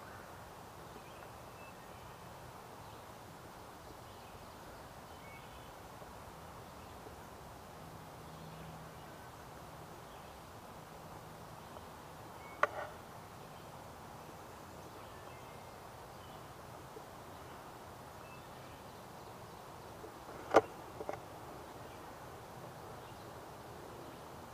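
Quiet woodland ambience: a steady faint background hiss with a few faint high bird chirps. Twice, about halfway through and again near the end, a sharp click sounds close by, each followed a moment later by a smaller click.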